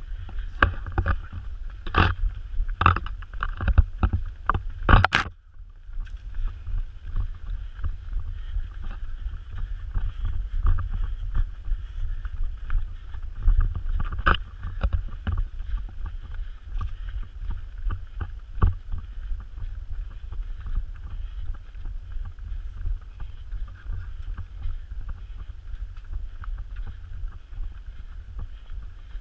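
A runner's footfalls on a dirt forest trail, picked up by a body-worn camera, with wind rumbling on its microphone. Several sharp knocks come in the first five seconds, then a steadier rushing with light irregular taps.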